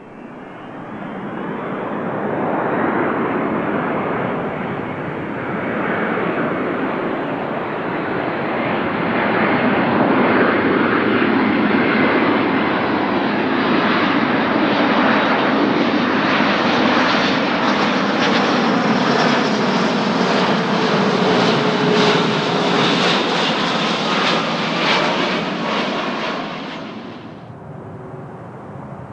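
Boeing C-17A Globemaster III's four Pratt & Whitney F117 turbofan engines on landing approach: a jet rumble with a high whine that grows louder over the first few seconds, stays loud as the aircraft comes close, then cuts off suddenly near the end.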